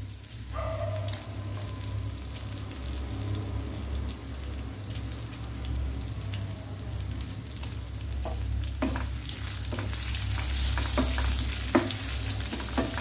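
Oil sizzling in a frying pan as mustard seeds, cumin and crushed garlic fry for a tempering and dried red chillies are broken into it. A few sharp clicks come in the last few seconds as the spatula stirs, and the sizzle grows brighter near the end, over a steady low hum.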